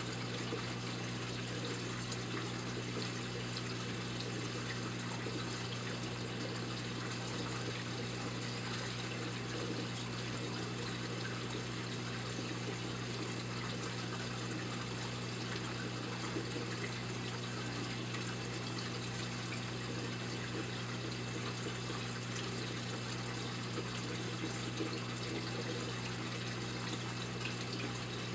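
Saltwater aquarium's water circulation running: steady moving-water noise with an even hiss over a steady low hum.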